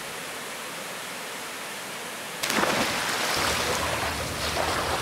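Small waterfall pouring into a rock pool, a steady rush of water. About halfway through it gives way to louder splashing as a swimmer churns through the pool.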